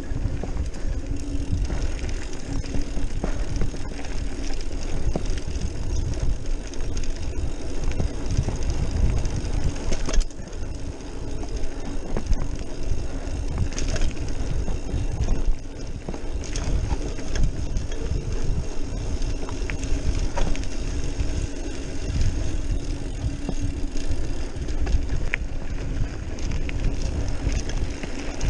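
Trek Marlin 5 mountain bike rolling fast down a dirt trail: a continuous low rumble of tyres on dirt and wind over the microphone, with frequent short rattles and knocks from the bike over bumps.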